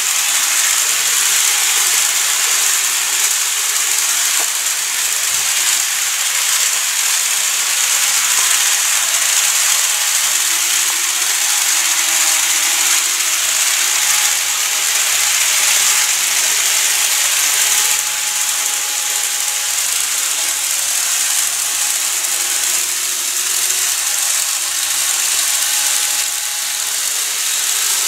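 N-gauge model electric trains running on a layout: a steady, high-pitched rattling hiss of small metal wheels rolling over the track, with a faint motor whine that comes and goes midway.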